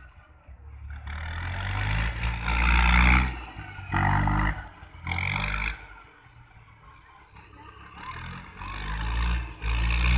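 Farm tractor's diesel engine running under load as it drives over rice straw spread on the ground to thresh the grain. The engine note swells and fades, loudest a few seconds in and again near the end.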